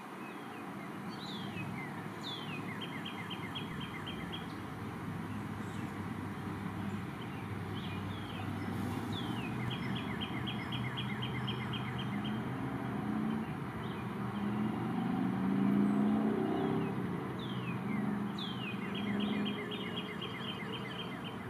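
A songbird singing a repeated phrase, a falling slur followed by a quick run of short notes, three times, over a low steady rumble that swells about two-thirds of the way through.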